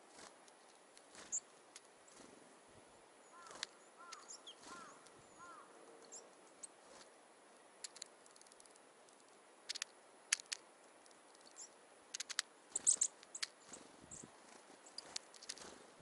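Small wild birds (tits and a nuthatch) calling with short, high, thin chirps scattered throughout. A run of four short arched notes comes a few seconds in, and sharp clicks come in clusters, the loudest about three quarters of the way through.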